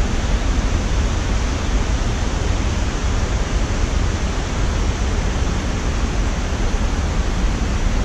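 Rushing water from small river cascades: a steady, even noise with a strong low rumble.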